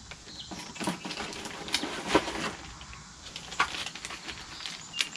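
Plastic bags holding Magpul PMAG 10-round magazines crinkling and rustling as they are handled, with scattered light clicks and crackles.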